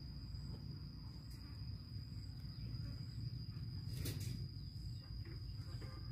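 An insect's steady, high-pitched trill runs on without a break over a low outdoor background rumble. A brief sharp click comes about four seconds in.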